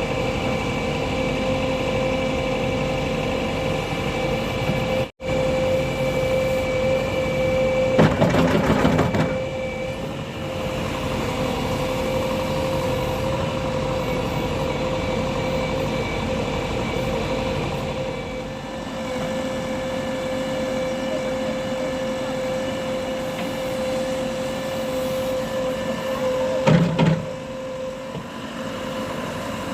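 JCB 3DX backhoe loader's diesel engine running steadily at working revs, with a loud clatter lasting about a second around eight seconds in and a shorter knock near the end.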